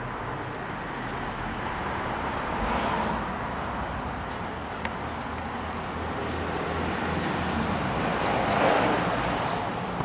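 Road traffic in the background: a steady rush of noise that swells twice, about three seconds in and again near the end, as vehicles pass.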